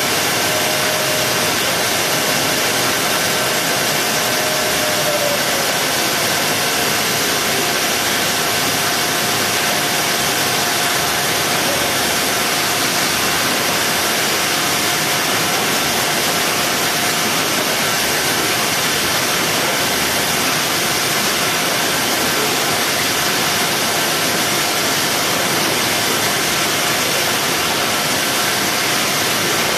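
Steady machinery noise of a box-palletizing line: an even, loud hiss with faint steady whines under it. A faint tone slides down in pitch about five seconds in, as the robot arm moves.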